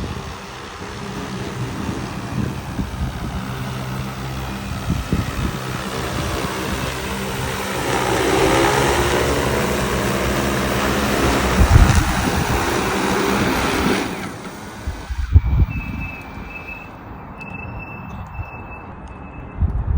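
A machine running steadily with a low hum and a broad hiss, growing louder about halfway through, then cutting off suddenly. Afterwards, short high beeps and a few knocks.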